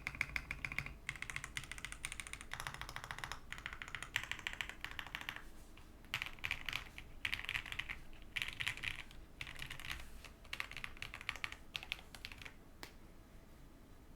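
QK65 mechanical keyboard with stock Wuque Aurora Pink linear switches being typed on: rapid runs of keystrokes in bursts. The typing stops about a second before the end after one last click.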